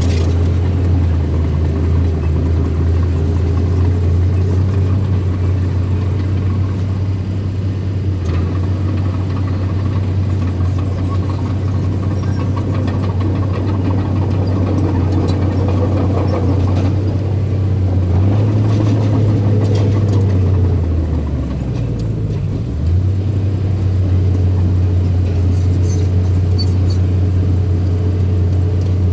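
Engine of earthmoving machinery running steadily with a deep, even hum. About two-thirds of the way through, its pitch sags as if under load, then it picks back up a couple of seconds later.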